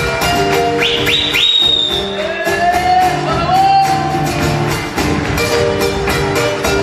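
Live folk band playing an instrumental passage with guitar over a steady, even beat. About a second in, three quick high calls rise in pitch over the music.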